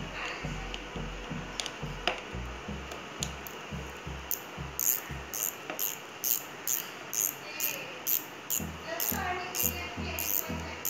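Background music with a steady beat and a repeating bass line; a tambourine-like jingle joins on each beat from about four seconds in.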